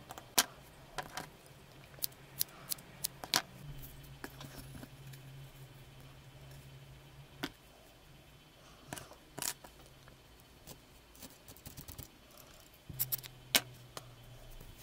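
Crafting handling sounds while working on a needle-felted wool cat face in a wooden frame: scattered sharp clicks and light taps, about a dozen, irregularly spaced. A low steady hum runs underneath and drops out for a few seconds in the middle.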